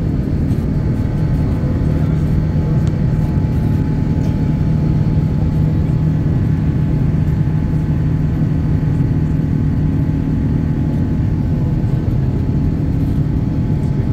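Jet airliner cabin noise in flight: the steady rush of the turbofan engines and the air streaming past, heard from inside the cabin by the wing, with faint steady engine hums over it.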